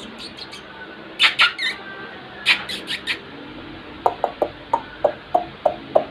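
Small black-and-tan puppy making a few sharp, squeaky yelps, then from about four seconds in a quick run of short, high yaps, about three a second.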